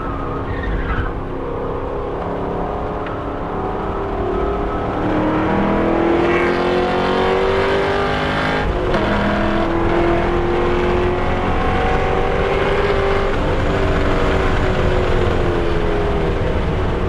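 A 2014 Camaro 1LE's 6.2-litre V8, heard from inside the cabin under hard acceleration on track. The engine note climbs steadily, drops once with an upshift about nine seconds in, climbs again, then falls away near the end as the throttle comes off.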